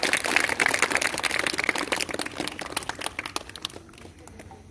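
Audience of children applauding, a dense patter of many hands clapping that dies away near the end.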